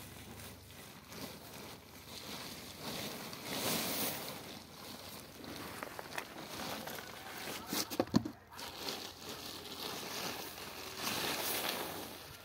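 Plastic tarpaulin rustling and crinkling in swells as it is handled around a heap of wheat grain, with a short cluster of sharp knocks about eight seconds in.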